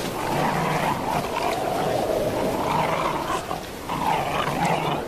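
Rough, drawn-out animal calls in three stretches of a second or two each.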